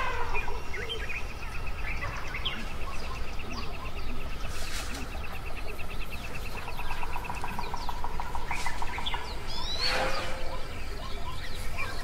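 Wild birds calling: scattered chirps, a long rapid trill through the first half and a lower pulsing trill later, and a sharp, falling squawk about ten seconds in, over a low steady rumble.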